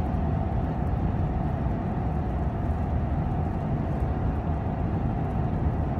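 Steady road and engine rumble heard inside a truck's cab cruising at highway speed, with a faint steady whine that fades out about halfway through.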